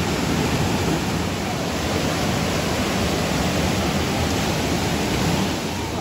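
Mountain stream rushing over boulders in a white-water cascade: a steady, loud rush of water that eases slightly near the end.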